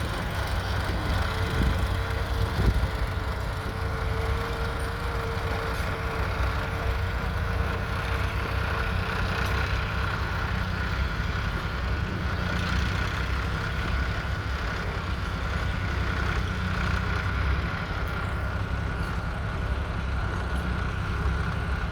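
The 2.7-litre four-cylinder diesel engine of a 1957 MAN Acker Diesel G40 tractor running steadily, with a steady high whine over it and a second, lower whine during the first half.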